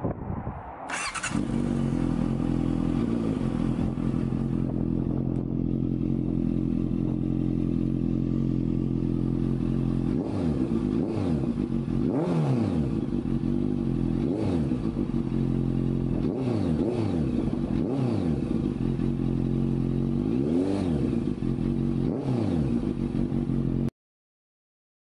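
Honda CBR650F inline-four engine running through a Danmoto Carbon GP full-system exhaust. It settles into a steady idle about a second in, and from about halfway through it is blipped repeatedly, each short rev rising and falling back to idle. The sound stops abruptly near the end.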